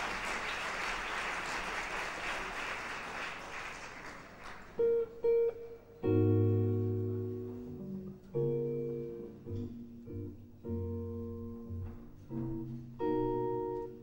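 A steady rush of noise fades away over the first four seconds. Then a seven-string electric archtop jazz guitar starts a chord-melody introduction: two short chords, then ringing chords with deep bass notes, one after another at an uneven pace.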